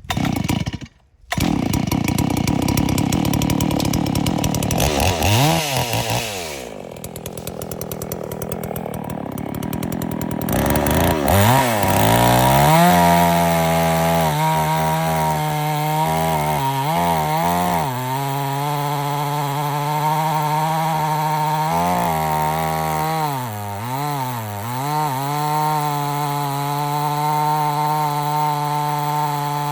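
Farmmac F380W gasoline chainsaw running at high revs while cutting through a log, its engine note dipping and recovering several times as it loads in the cut.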